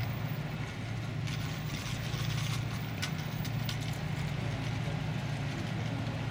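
Towboat's diesel engines giving a steady low drone across the river as they push a heavy barge tow upstream, laboring under the load. A few faint clicks sound over it.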